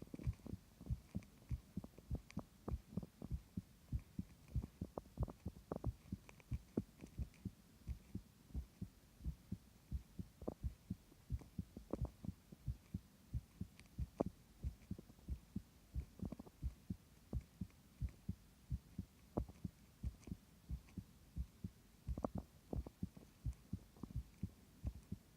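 A person's heartbeat, recorded close up: a steady, even run of soft low thumps, which the owner wonders is weak.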